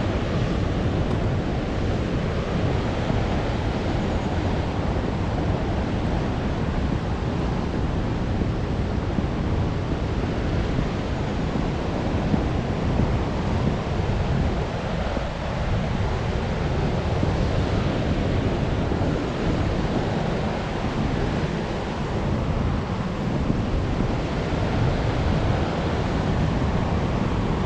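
Steady, even rushing noise with no distinct events, heaviest in the low end: outdoor air and water noise on the trail.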